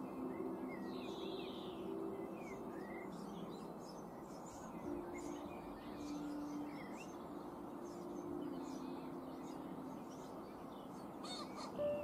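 Soft background music with held notes under the chirps of small songbirds; near the end a male common pheasant gives its harsh crow with a quick burst of wing-flapping, the loudest sound.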